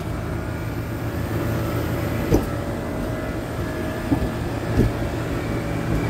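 Rooftop air-conditioning condensing units running: a steady low drone with a faint steady whine over it, and a few short knocks.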